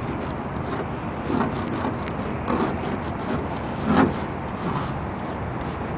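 A finger scraping through frost on a car window, several short soft scrapes as letters are drawn, over a steady rushing background noise.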